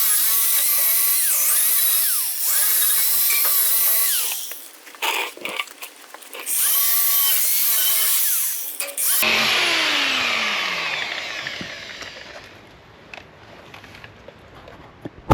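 Angle grinder stripping paint from steel around a weld, its motor whine shifting in pitch as it bears on the metal. It runs for about four seconds, stops, and runs again for about three. Then it is switched off and its whine falls away as it spins down.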